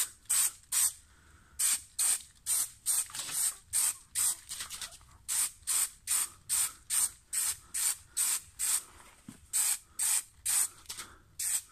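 Small aerosol can of blue-tinted spray contact adhesive hissing in short, quick spurts, about two or three a second, sprayed along a chipboard edge.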